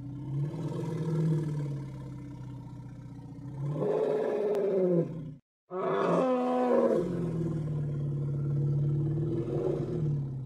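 Elephant-like animal call, used as a mammoth's voice: a long, low, pitched rumble that swells into two louder roars, one about four seconds in and one just after a brief silence near the middle. It then settles back into a low rumble.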